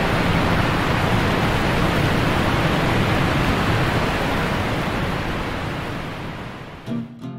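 Steady rush of sea surf, fading out near the end as acoustic guitar music starts.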